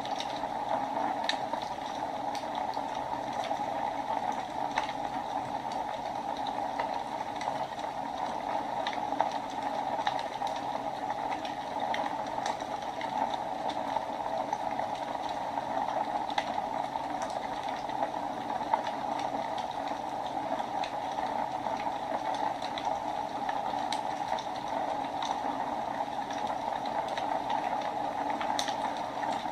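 Wood fire burning in a fireplace: a steady hiss with irregular crackles and pops.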